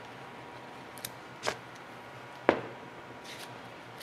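A few light handling clicks and knocks, with a couple of brief hisses, as the buffer is readied with its third buffing pad. The sharpest knock comes about two and a half seconds in.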